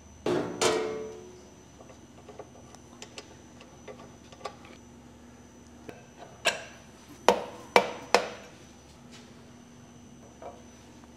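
Steel tools and grinder parts knocking against metal. There is a sharp clank with a short ringing tail about half a second in, light ticks and taps, then four hard metallic knocks in quick succession between about six and a half and eight seconds in.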